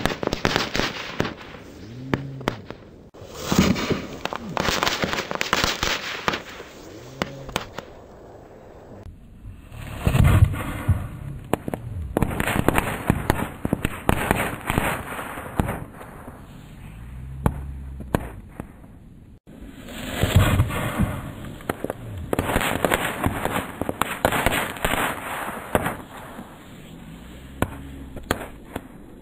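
Battle gunfire: dense, rapid cracks and bangs of rifle and machine-gun fire, coming in waves a few seconds long.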